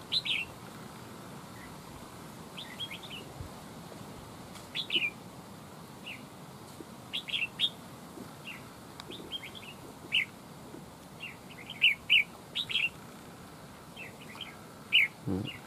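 Red-whiskered bulbuls calling, a long run of short, sharp chirps coming in irregular clusters, the territorial calling that a fight trap's caged decoy draws from a wild bird.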